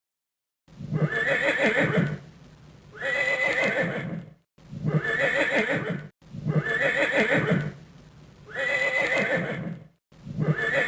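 A horse neighing six times in a row, each call about a second and a half long and much alike.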